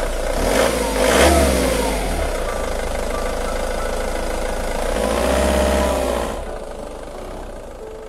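Van engine sound effect: the engine runs and revs twice, with a rise and fall in pitch about a second in and again around five seconds, then fades away near the end.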